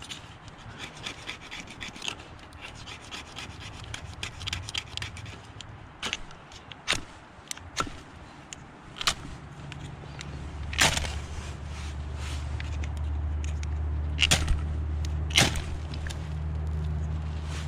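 A fire starter struck again and again with short scraping strokes, throwing sparks onto laundry lint tinder. About ten seconds in, a steady low rumble sets in under the strikes.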